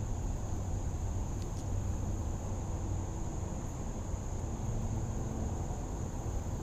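Steady outdoor background: a continuous high-pitched insect chorus, likely crickets, over a low, even rumbling noise.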